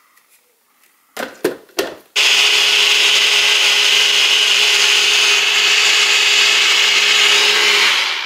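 NutriBullet personal blender puréeing a green avocado salsa with water and cilantro. A few knocks as the cup is set onto the base, then about six seconds of loud, steady motor and blade noise with a constant hum, which stops just before the end.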